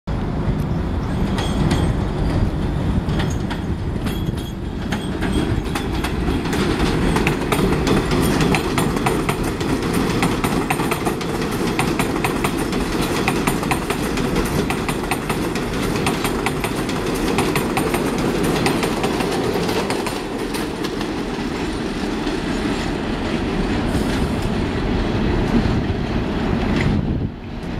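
Bombardier R62A subway train on the elevated 7 line running past at close range, a steady rumble of steel wheels on the rails with a fast run of clicks over the rail joints. The sound breaks off suddenly near the end.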